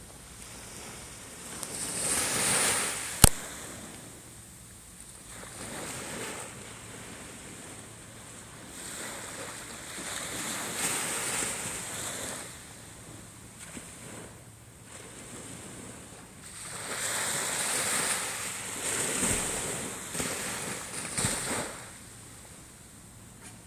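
Small waves breaking gently on a sandy shore and washing up the beach, the wash swelling up and dying away three times: about two seconds in, around ten to twelve seconds, and from about seventeen to twenty-one seconds. A single sharp click a little after three seconds.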